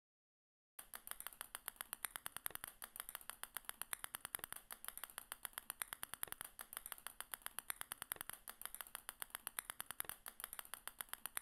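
Sound effect of small balls dropping one by one onto a growing pile: a rapid, even run of light clicks, about ten a second, starting about a second in.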